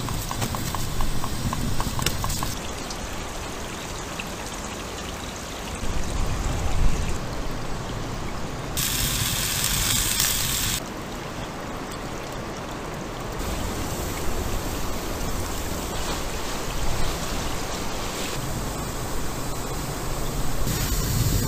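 Campfire crackling and hissing, the hiss changing in character every few seconds, with a few fine crackles near the start and a louder, brighter hiss for about two seconds near the middle.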